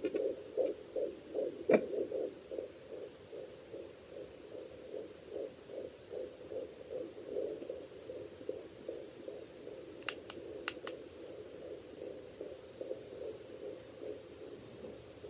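Fetal Doppler's speaker giving out a fast, even pulsing whoosh: a baby's heartbeat picked up through the mother's belly. One sharp click comes about two seconds in and a few more about ten seconds in.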